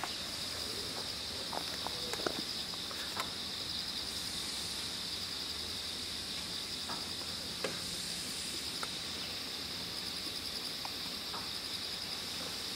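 A steady, high-pitched chorus of summer insects, with a few faint clicks and knocks scattered through it.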